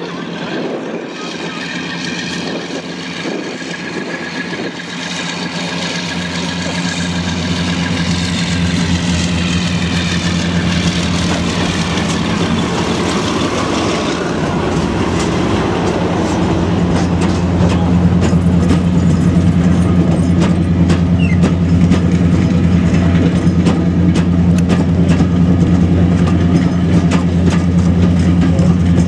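Class 52 Western diesel-hydraulic locomotive running steadily as it hauls a train slowly past, growing louder as it comes by. From about halfway the coaches roll past with a rapid run of wheel clicks over the track.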